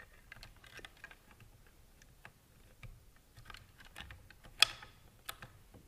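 Scattered light clicks and rustling as the plastic lower head piece of a Minn Kota trolling motor and its wiring are handled and fed together. Two sharper plastic clicks come in the second half.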